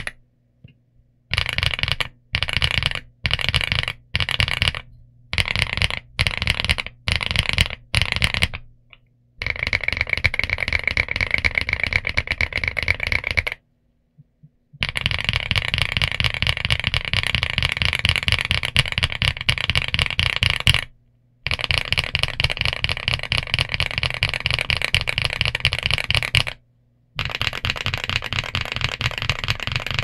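Typing on a Geekzb Story65 R3 mechanical keyboard fitted with Zuoce Litchi Milk switches and GJ Jockey PBT keycaps. It starts with short groups of keystrokes about half a second apart, then settles into fast continuous typing with a few brief pauses.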